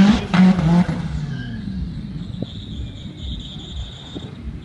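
Mitsubishi Lancer Evolution VIII's turbocharged four-cylinder engine at full throttle on a drag strip launch, loud for about the first second and then fading as the car runs away down the track.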